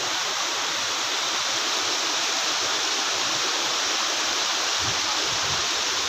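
Rushing water of a rocky mountain stream, a steady, even rush.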